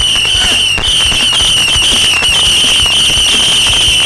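Many Saturn missile fireworks firing together: a continuous shrill whistle from the rockets, wavering and dipping briefly every half second or so, over a dense stream of small pops and crackles.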